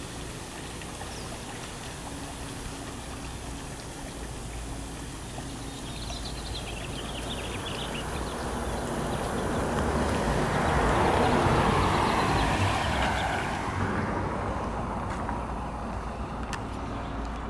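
Lawn sprinklers spraying and water running over the sidewalk, with a rushing noise that swells to its loudest about eleven seconds in and fades again by fourteen.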